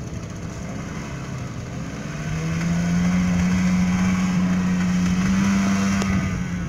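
Outboard motor on an inflatable rescue boat running steadily. A little over two seconds in, its pitch and loudness rise slightly as it is throttled up, then hold.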